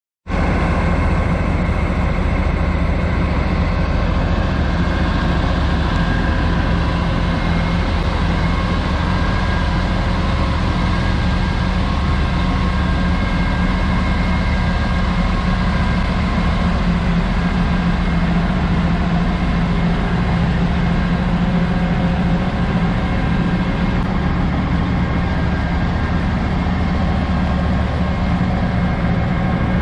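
Heavy diesel semi-truck engine idling steadily, a continuous low drone with a constant hum.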